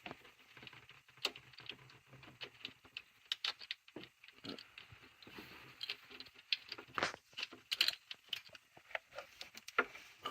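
Irregular light clicks, taps and rattles of hands and a tool working a coil-on-plug ignition coil loose and out of its spark plug well on a Ford 4.6 2-valve V8.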